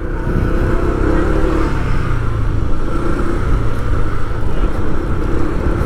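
Motor vehicle running on the road: a steady low engine hum and road rumble.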